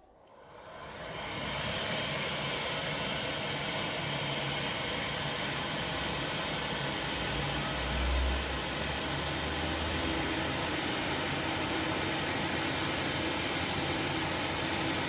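Wood lathe starting up and then running steadily at high speed, spinning a turned mahogany tool handle while wax is applied to it. A brief low bump sounds about eight seconds in.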